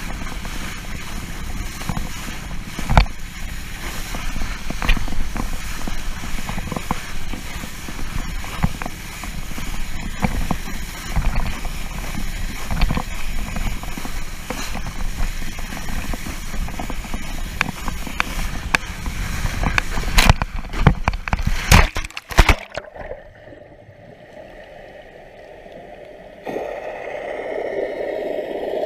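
Wind buffeting and water spray rushing past an action camera on someone towed on a board behind a boat, with the board knocking over the chop. About twenty seconds in come several loud splashes, then the sound drops suddenly to a muffled, much quieter underwater rush as the camera goes under.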